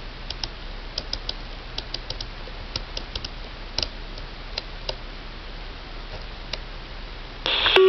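Steady hiss with scattered light ticks. Near the end a radio receiver opens with a burst of static, and a steady pager alert tone begins.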